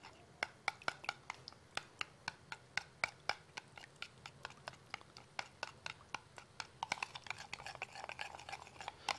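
A spoon stirring tomato paste and lemon juice in a small ceramic bowl, clicking against the bowl about three times a second.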